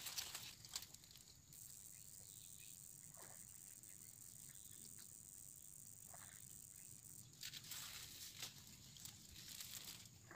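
Near silence: a faint, steady high-pitched insect drone that cuts off about seven seconds in, with a few soft rustles of reeds.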